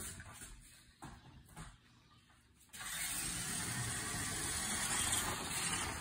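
Remote control toy truck driving: a steady, even hiss of its motor and wheels that starts abruptly about three seconds in, after a few faint clicks.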